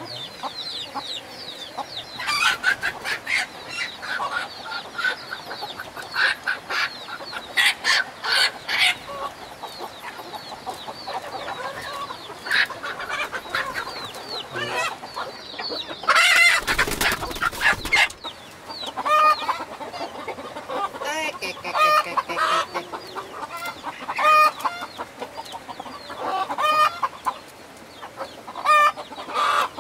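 Domestic chickens clucking and squawking, many short calls overlapping throughout. About halfway through there is a loud burst of noise lasting under two seconds.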